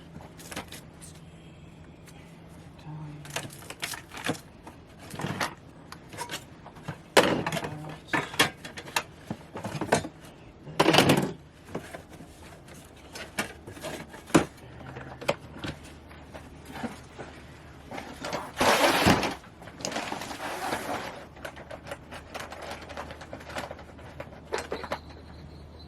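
Camp cooking gear being handled: scattered knocks and clatters of a pan and utensils, with a few longer scraping or rustling noises.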